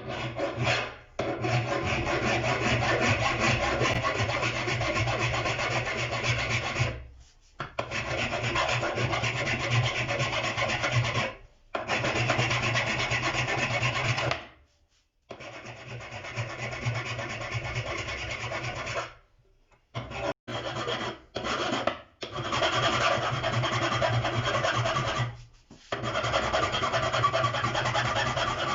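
Steady abrasive scraping of a chisel's steel being worked against an abrasive or file. It comes in several long stretches, each stopping abruptly with a short silence before the next.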